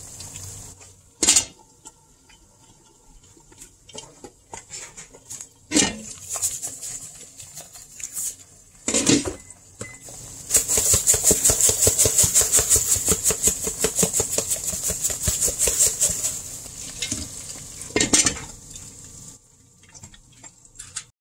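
Eggs sizzling in a skillet, with a few sharp knocks of utensils against the pan. From about ten seconds in comes a rapid rhythmic rattle of seasoning being dispensed over the eggs, lasting about six seconds. A clack near the end comes as the glass lid goes on.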